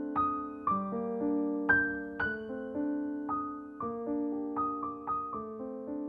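Slow solo piano music, with notes and chords struck about every half second and left to ring.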